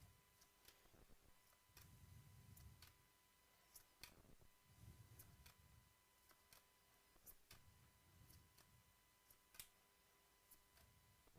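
Near silence, with faint scattered clicks and ticks from trading cards being handled and sorted.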